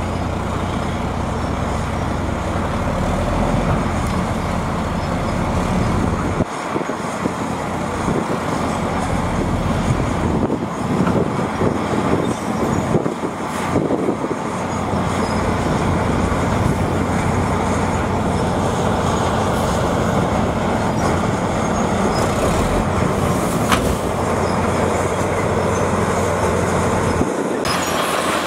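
Dump truck's diesel engine running as the raised tipper body unloads its load of dirt onto the ground. In the last second, a Komatsu bulldozer's engine as it pushes a heap of soil.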